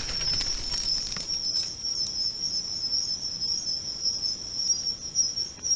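Insects trilling steadily: one continuous high-pitched chirr.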